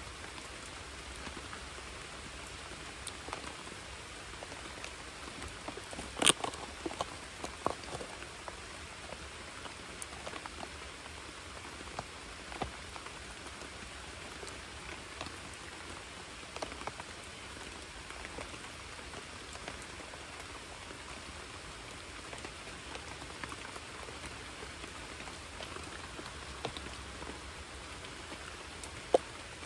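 Steady rain falling on a creek, with scattered close drops ticking near the microphone. A sharper tap comes about six seconds in.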